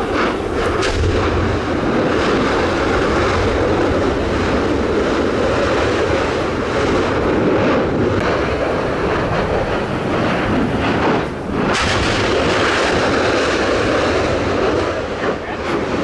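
Newly opened volcanic fissure erupting: a continuous loud roar of venting gas and lava with a few sharper blasts, one about half a second in and another near twelve seconds.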